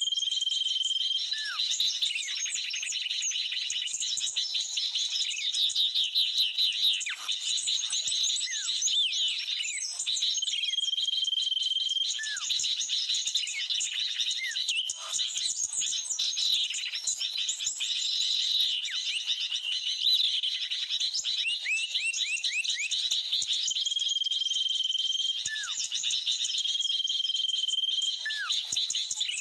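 Dense chorus of chirping small birds and sooty-headed bulbuls from a bird-lure recording played through a speaker to attract birds. A steady whistled note about a second long comes back four times, among short falling calls.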